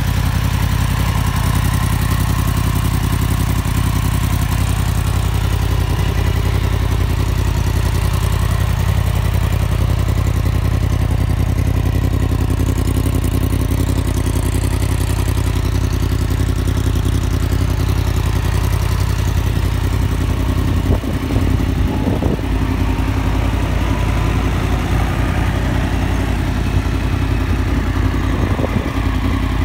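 Yamaha MT-10's crossplane inline-four engine idling steadily, fitted with a de-cat link pipe in the exhaust.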